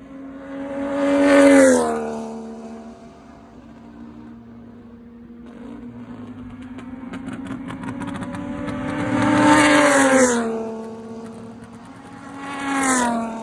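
TCL Clase A race cars passing at speed, three times. Each engine note falls in pitch as the car goes by, the first about a second and a half in, the second after a long approach near ten seconds, and the third near the end.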